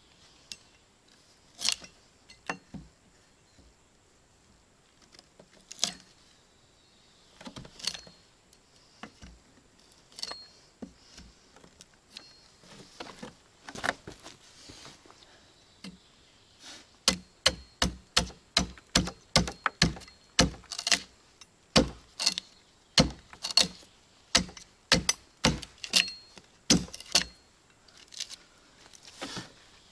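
Scattered sharp knocks and light metallic clinks, some with a short ringing tail. About halfway through they give way to a steady run of sharp blows, two to three a second, like work with a hand tool.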